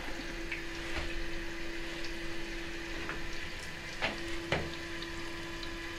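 Armitage Shanks Sandringham toilet cistern refilling after a flush: water running steadily through the fill valve with a steady low tone, and two faint knocks about four seconds in.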